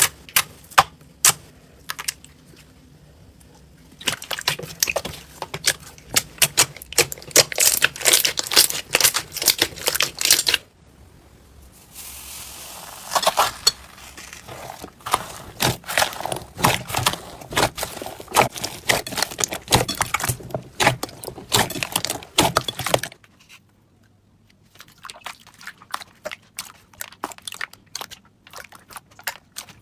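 Slime being squeezed, poked and stretched by hand, giving rapid crackling clicks and pops. It comes in several short clips, with sudden changes in sound about 4, 11, 12 and 23 seconds in.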